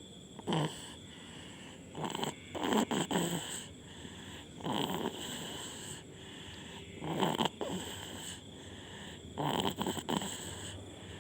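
A sleeping baby snoring, with a rasping breath every two to three seconds, some in two parts.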